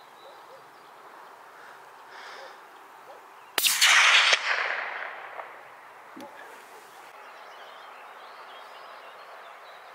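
A single hunting-rifle shot about three and a half seconds in, its echo rolling away over a second or two, over a faint open-air background.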